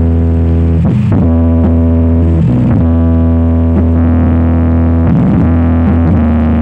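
Loud, bass-heavy music played through a large sound system's speaker cabinets at full volume. Long held bass notes change every second or two.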